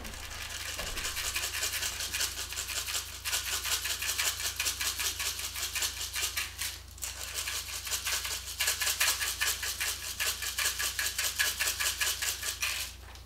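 A hand-twisted spice grinder grinding over bowls of soup in quick, even crunching strokes, pausing briefly twice, the longer break about seven seconds in.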